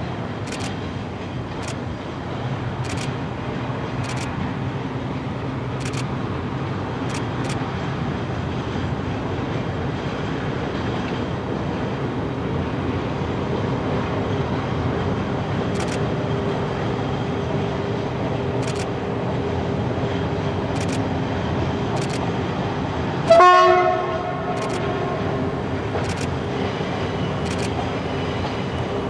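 Heritage diesel railcar train crossing a bridge, its engines droning steadily with the wheels clicking over rail joints every second or so. About three-quarters of the way through comes one short, loud horn blast.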